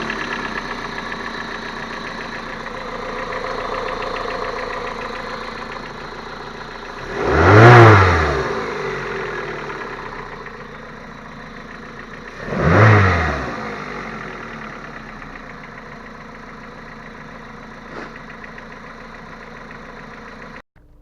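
Geely Emgrand EC7 1.8-litre engine running steadily and blipped twice, each rev rising and falling in about a second, an engine its owner says has a knock. The engine sound cuts off suddenly just before the end.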